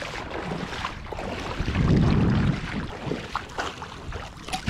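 Wind buffeting the microphone in gusts, loudest about two seconds in, with water splashing near the end as a hooked flathead thrashes in a landing net in shallow water.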